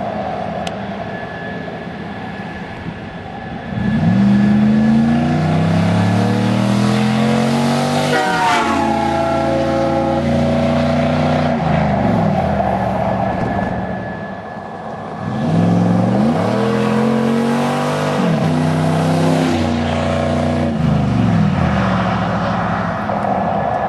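Hemi V8 running with open DMH exhaust cutouts, accelerating past twice. Each time the exhaust note climbs in pitch as it comes closer and drops sharply as it goes by.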